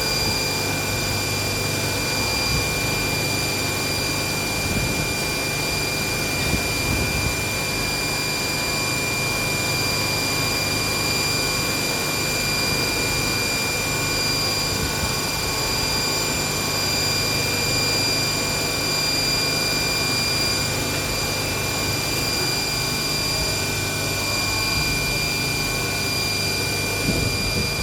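CNC vertical machining centre running steadily while machining a die: a high-pitched whine that holds one pitch over a steady hiss and low hum.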